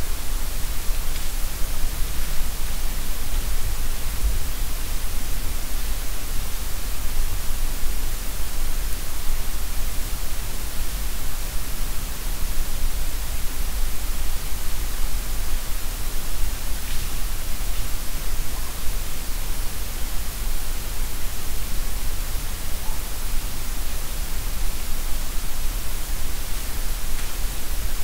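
Steady hiss of a boosted night recording from an unattended digital recorder, with a low rumble underneath. A couple of faint short ticks stand out, about two-thirds of the way through and near the end.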